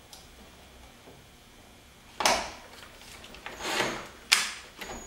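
Cordless drill with a 3/8-inch bit cutting into a composite spoiler, run in two short bursts, about two seconds and three and a half seconds in, as the bit grabs in the material. A sharp click follows near the end.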